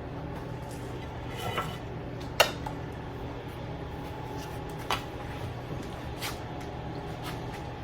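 Utensils clinking and tapping against dishes while food is served: four short sharp clicks, the loudest about two and a half seconds in, over a steady low hum.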